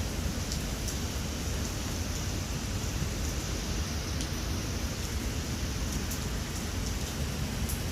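Steady rain falling, with scattered single drops ticking close by over a continuous low rumble.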